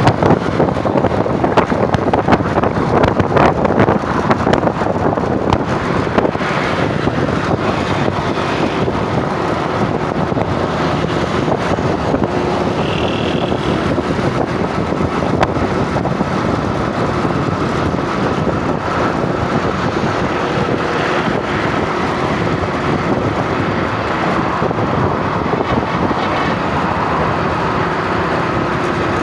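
A motor vehicle driving along, a steady mix of engine, tyre and road noise with wind buffeting the microphone.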